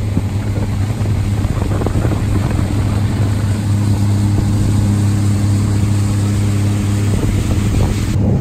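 Suzuki outboard motor running steadily at cruising speed, a constant hum with a rush of wind and water over it.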